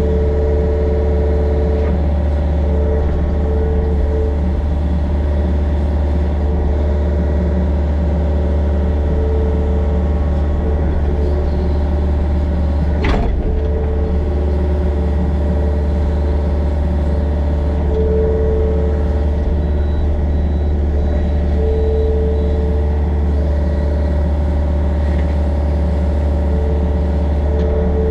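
Mini excavator's diesel engine running steadily under work, with a hydraulic whine that comes and goes as the controls are worked. One sharp knock about halfway through.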